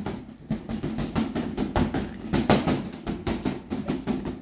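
A rubber balloon on an elastic band being slapped again and again by hand, a rapid run of thumps about five a second.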